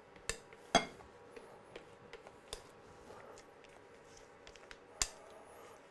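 A few sharp clinks of a spatula and whisk against glass mixing bowls as beaten egg whites are scraped from one bowl into another, the loudest about a second in with a brief ring.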